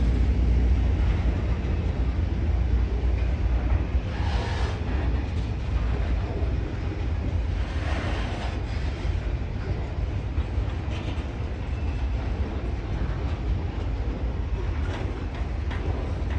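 Pacific National freight train rolling past at track side, a steady low rumble with occasional faint clicks.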